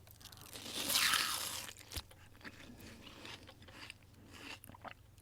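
Close-up crunching bite of crisp food, loudest about a second in, followed by softer chewing crackles and clicks.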